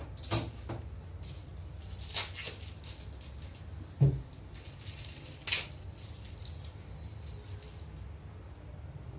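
A steady low hum with a handful of short knocks and scrapes about every second or two; the loudest is a dull thud about four seconds in.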